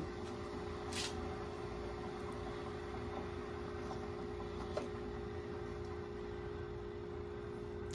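A steady low appliance hum, with a light plastic click about a second in and a fainter tap near five seconds as a coffee pod is handled and seated in the holder of a single-serve coffee maker.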